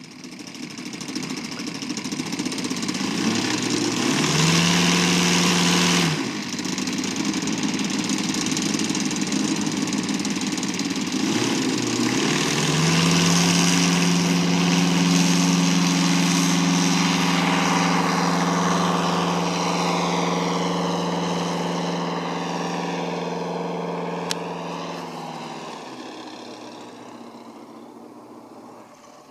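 Engine and propeller of a large radio-controlled Tiger Moth biplane model. The engine is run up briefly about four seconds in and drops back. About twelve seconds in it opens up to a steady full-throttle note for the takeoff run and climb, which fades away near the end as the model flies off.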